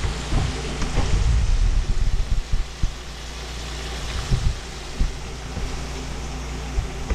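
Pieces of snapper frying in a pan of hot oil, sizzling steadily, with a steady low hum and a few low knocks and bumps.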